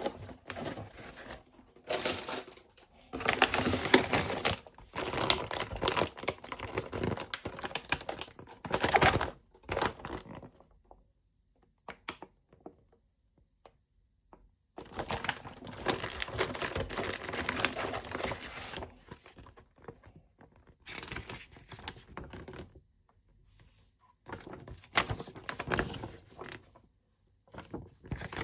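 Close handling noises: rustling and crinkling with light clicks and knocks, in irregular bursts separated by quiet pauses of a second to a few seconds.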